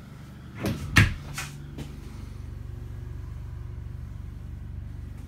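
A few sharp knocks and clicks from an interior door being handled and shut, the loudest about a second in, followed by a steady low hum.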